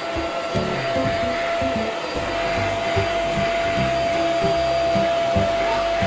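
Cordless stick vacuum cleaner running with a steady whine, over background music.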